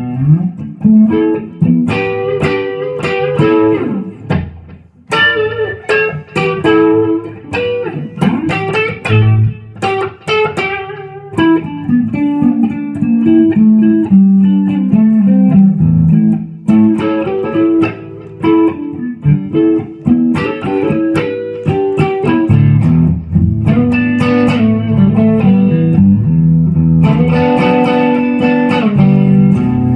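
1996 Epiphone Les Paul Custom electric guitar with Gibson 490 humbucking pickups being played: a steady stream of picked notes and riffs, with a brief break about five seconds in.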